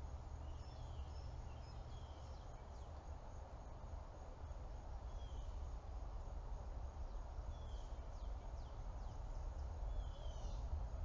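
Quiet outdoor ambience: a steady low rumble with short, high, falling bird chirps every few seconds, about five in all.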